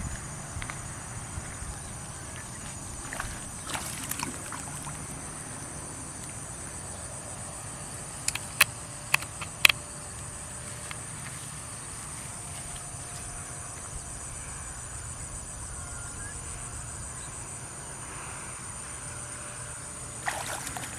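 Insects trilling steadily in a flooded rice field, a high-pitched whirring chorus. About eight to ten seconds in come four sharp clicks close together, the loudest sounds, and there is brief rustling near the start and just before the end.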